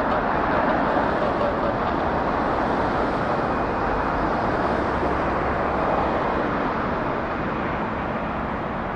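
Steady roar of the Cessna Citation Longitude's twin Honeywell HTF7700L turbofan engines, with a faint high whine in the middle.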